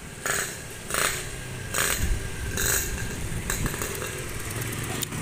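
Motorcycle fitted with an Altec C20RR aftermarket exhaust running on the road. Its engine drone is broken by about five sharp exhaust bursts, a little under a second apart.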